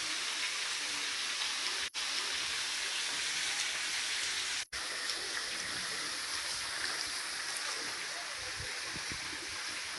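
Waterfall spray falling and dripping down a mossy rock face: a steady hiss of falling water, cut off for an instant twice.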